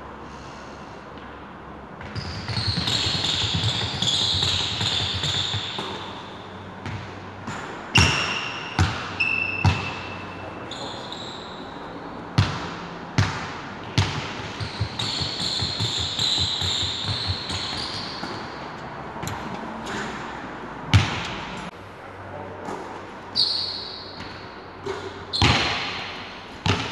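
Basketballs bouncing and thudding on a hardwood gym floor during a shooting drill, a dozen or so sharp, irregular impacts that echo in the large hall. Between them come several stretches of high squeaking from sneakers on the floor.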